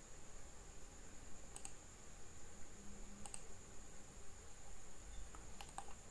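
A few sharp clicks of computer input: a pair about one and a half seconds in, one about halfway, and a quick cluster of three or four near the end. Under them is a faint steady hiss with a thin high whine.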